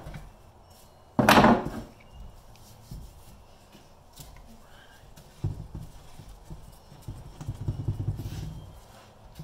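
Hands handling axle bearing parts on a wooden workbench and wiping a Toyota rear axle hub with a rag: scattered low knocks and rubbing, busiest in the second half. A louder short burst of noise comes just over a second in.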